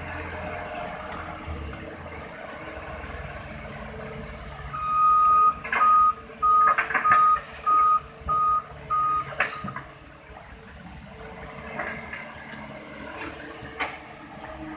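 Toy truck's reversing-alarm sound effect: a short high beep repeated about seven times over some five seconds, with a few sharp clicks among the beeps.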